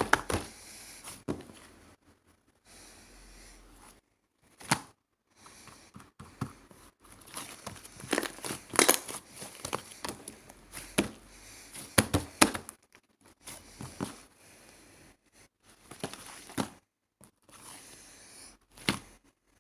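Irregular crinkling and rustling handling noises in short bursts, with quiet gaps between and a louder cluster about halfway through.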